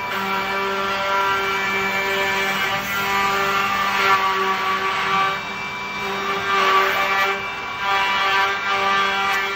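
Andreoni Standard 12 multi-spindle copy-milling machine (pantograph router) running: a steady high whine from the spindles, with a rasping swell twice as the cutters bite into the wooden blocks.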